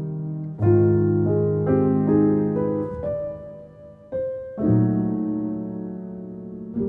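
Background piano music: a slow run of struck notes and chords, each ringing out and fading, with a brief lull a little after four seconds in.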